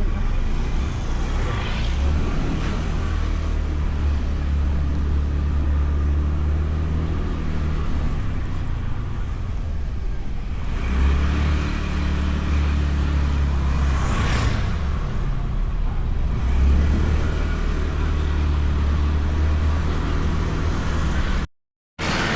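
Honda Beat scooter's single-cylinder engine running while riding, with road and wind noise; its low drone shifts in pitch as the throttle changes. About two thirds of the way in another vehicle rushes past close by, and the sound drops out for half a second near the end.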